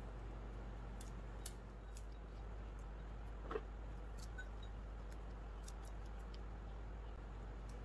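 Pecan halves being broken apart by hand and dropped into a ceramic bowl: faint, scattered small clicks and cracks, with one brief louder sound about three and a half seconds in, over a steady low room hum.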